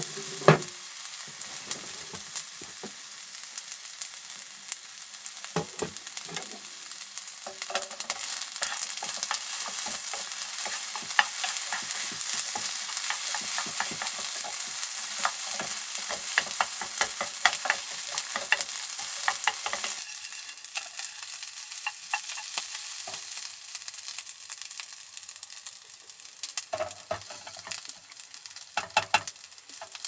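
Fried rice sizzling in a stainless steel pot on a portable gas stove, with a metal spoon scraping and clicking against the pot as it is stirred, busiest through the middle. A sharp clink just after the start and a few knocks near the end.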